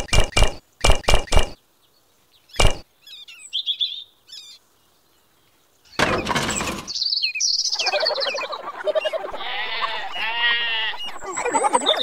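Rhythmic sawing or rubbing strokes, about four a second, stop about a second and a half in, followed by a single knock. After a sudden burst about six seconds in, birds chirp and a wavering animal call sounds.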